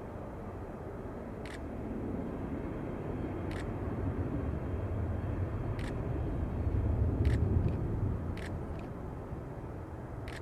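Jet engines of a Boeing 767-300ER running at low thrust: a low rumble that swells, peaks past the middle and eases off again. About six short, sharp clicks sound over it.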